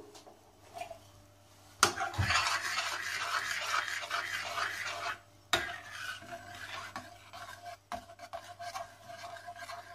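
A ladle stirring potato soup in a stainless steel pot, swishing and scraping against the pot. It starts about two seconds in, is strongest for the next few seconds, then goes softer with a few light knocks.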